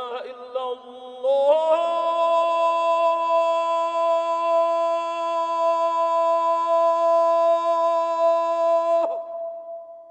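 A man's voice chanting the ezan, the Islamic call to prayer, in an ornamented melodic line. About a second and a half in it climbs to one long held note, which breaks off near the end.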